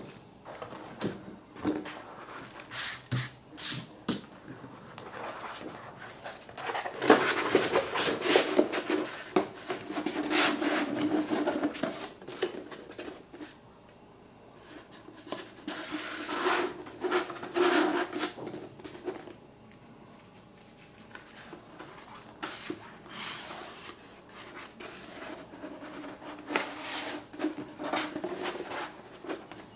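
Paper and a thin plastic sheet rustling and crinkling in irregular bursts as hands handle them and roll the plastic into a cone.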